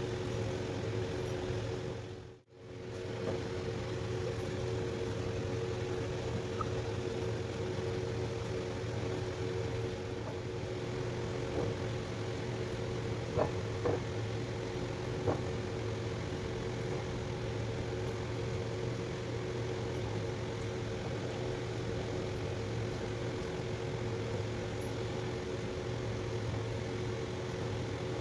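Steady machine-like hum with two steady tones, which cuts out briefly a couple of seconds in, with a few faint clicks near the middle.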